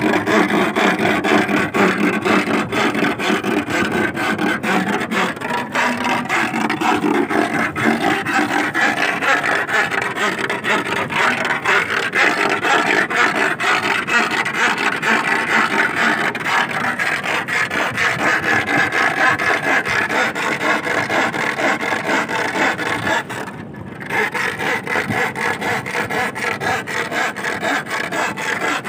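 An iron bar rasped rapidly and continuously across a wooden stake driven into a seagrass tidal flat, giving a steady grating scrape with one short break near the end. The noise and vibration sent into the sand are meant to make sea worms (sasing) crawl out on their own, with no digging needed.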